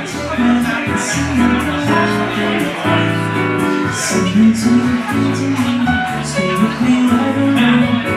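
Live jazz in a lounge: a woman singing over electric bass guitar and grand piano.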